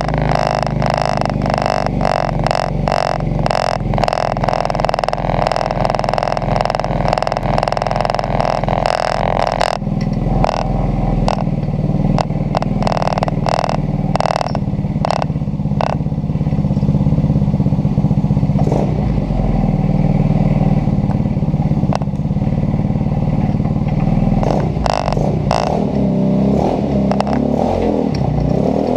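150cc Kandi dune buggy's single-cylinder GY6 four-stroke engine idling, with a fast, even rattling clatter through the first ten seconds. Near the end the revs rise as the buggy pulls off.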